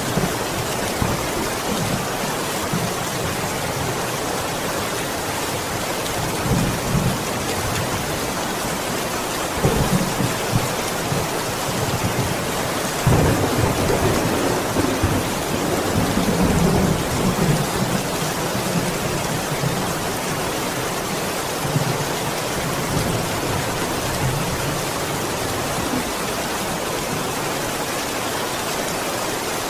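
Steady heavy rain with thunder rumbling several times, the longest and loudest roll about a third of the way in.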